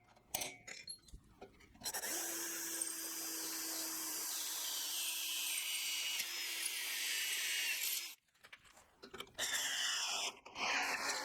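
Electric drill boring bolt holes, running steadily for about six seconds and then stopping abruptly. A shorter second run near the end winds down in pitch. A few handling clicks come before the first run.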